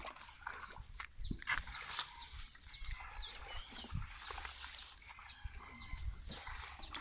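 A bird calling a short, high, falling chirp over and over, a few times a second, with scattered low thumps underneath.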